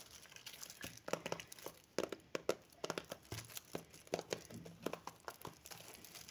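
Metallic foil gift wrap crinkling and crackling as hands crumple and pull it open around a small box. The crackles come in irregular clusters, fairly faint.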